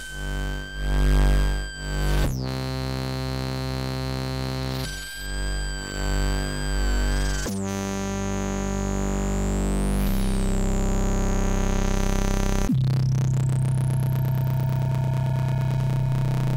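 Oscilloscope music: electronic synthesizer tones whose two stereo channels draw pictures on an oscilloscope screen in XY mode. Buzzy sustained chords change abruptly every two to three seconds, and high pitch sweeps appear in the second half, one crossing near the middle and a long rising one near the end.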